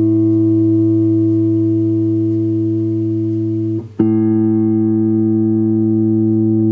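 Electric guitar played through an amplifier: a chord is held and rings until almost four seconds in, then a second chord is struck and left to sustain.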